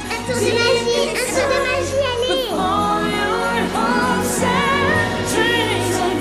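Christmas show music: a full musical soundtrack with singing voices sliding in pitch over sustained instruments, and jingle bells.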